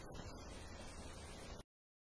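Faint room tone: a steady low hiss with no distinct sounds, which cuts off suddenly to dead silence near the end.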